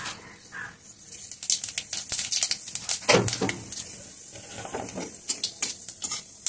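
Panch phoron (Bengali five-spice seeds) and dried red chillies spluttering in hot oil in a steel kadai: a light sizzle with many irregular sharp crackles and pops as the seeds fry.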